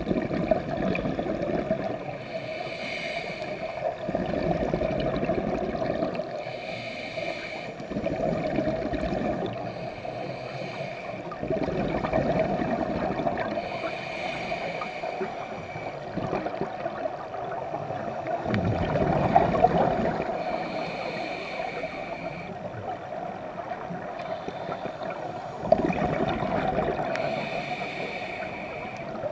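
A scuba diver breathing through a regulator, heard underwater: a hissing inhale alternates with a bubbling rumble on each exhale, about six slow breaths.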